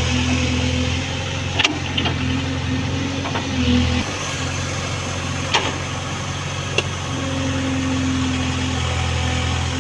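Diesel engine of heavy earthmoving or farm machinery running steadily, with a few sharp knocks.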